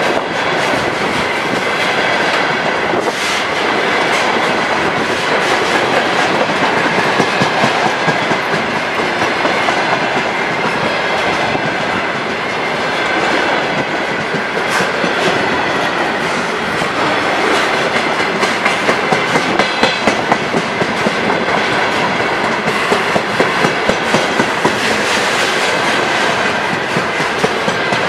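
Loaded container flat wagons of a freight train rolling past close by: a loud, steady rumble of steel wheels on the rails, with runs of rhythmic clickety-clack as the wheelsets cross rail joints, strongest in the second half.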